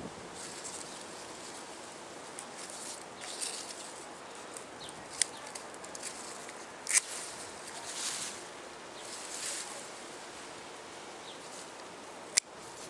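Scissors snipping through basil stems: a few sharp clicks, with soft rustling of the leafy stems between cuts.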